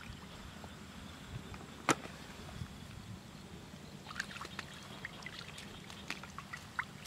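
Hands and fish splashing and squelching in shallow muddy water as fish are grabbed by hand, with one sharp knock about two seconds in and a run of small splashes and clicks in the last three seconds, over a steady low background noise.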